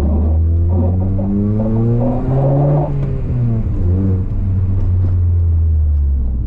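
Honda Prelude engine heard from inside the cabin, its pitch rising steadily for about two seconds under acceleration, then dropping back and holding at a steady low drone.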